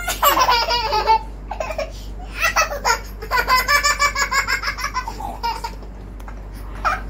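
A toddler laughing hard in two bouts of quick, repeated high-pitched pulses: a short one at the start and a longer one from about two and a half seconds in.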